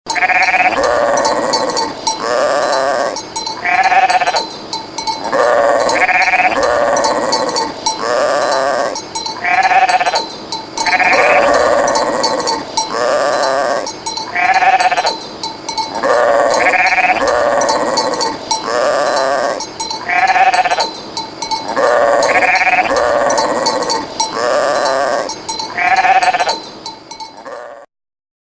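Sheep bleating again and again, one call closely following another, stopping abruptly near the end.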